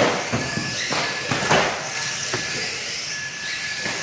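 Electric radio-controlled saloon cars racing on a carpet track: a steady hiss of motors and tyres, with a quick rising-and-falling whoosh each time a car passes close, near the start, about a second and a half in, and at the end.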